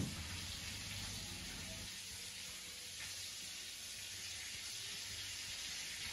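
Hot oil sizzling steadily around coconut-flour-coated crayfish frying in the pan.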